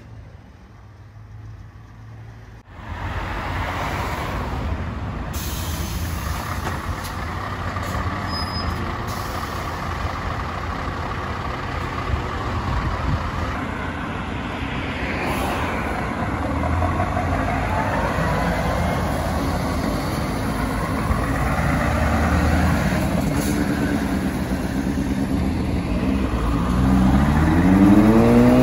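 Heavy truck diesel engines running as tractor units roll past in a line, a steady low rumble that starts after a quiet first few seconds. Near the end a Scania tractor unit's engine revs up with a rising pitch as it pulls by.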